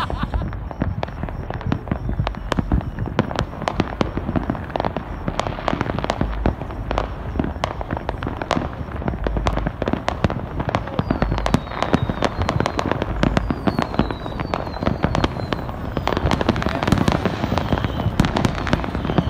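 Fireworks and firecrackers going off all across the city at once: a dense, continuous crackle of pops and bangs, near and far, with a few short faint whistles about midway.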